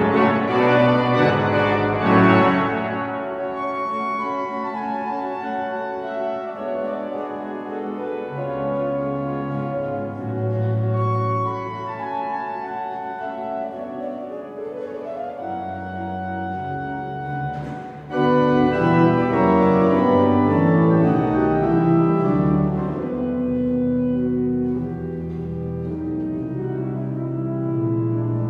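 Pipe organ playing slow, sustained chords; after a brief dip, a loud full chord comes in about two-thirds of the way through.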